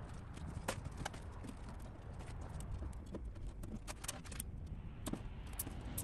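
Irregular light clicks and taps of wiring and braided wire loom being handled and fitted, over a low background rumble.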